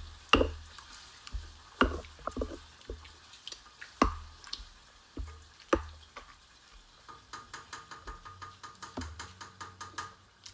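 Stone pestle grinding and pounding roasted tomatoes and chiles in a volcanic-stone molcajete: irregular knocks of stone on stone, then, about seven seconds in, a quick run of taps at about four a second.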